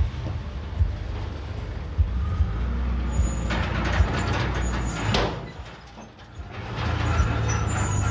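A heavy engine running with a steady low hum and scattered clicks. About three and a half seconds in a hissing rush rises for nearly two seconds, the engine sound drops off briefly, then comes back up.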